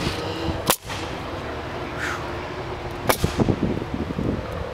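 A single sharp bang about three-quarters of a second in, then a quick run of sharp knocks a little after three seconds, over a steady low rumble.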